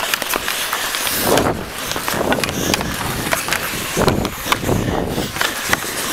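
Hockey skate blades scraping and carving on the ice, with frequent sharp clicks and clatter of sticks, picked up close by a camera on a skating player.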